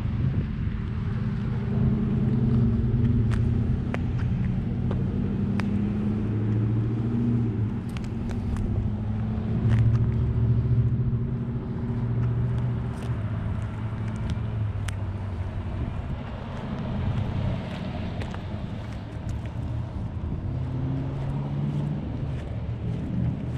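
A motor vehicle engine running with a low, steady rumble whose pitch shifts slowly up and down, with scattered light clicks over it.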